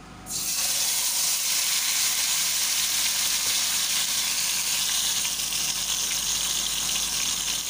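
Marinated chicken piece frying in a tablespoon of hot oil in a nonstick pan: a sizzle that starts suddenly as the chicken hits the oil, then holds steady.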